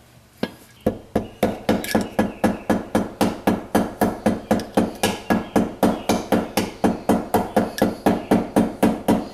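Rapid light tapping with a screwdriver on the piston of a Kawasaki four-stroke engine, an even run of about four to five taps a second starting about a second in, to drive the piston and its rings into the cylinder without a ring compressor.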